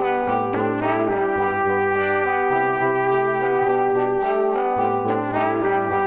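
Instrumental background music: sustained held notes over a bass line that steps between notes every second or so.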